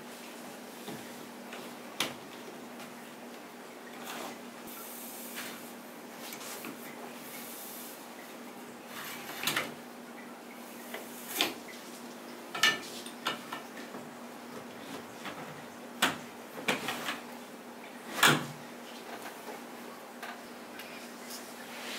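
Curtain grommets clacking and sliding along a curtain rod as curtains are pulled along and taken off it: a dozen or so sharp, scattered clicks, with fabric rustling in between.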